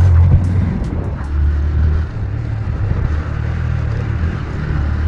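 Strong gusting wind buffeting the microphone: a low rumble that swells and eases every second or so.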